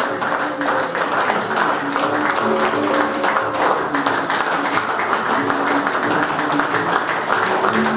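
Audience applauding steadily, with music of held notes playing underneath.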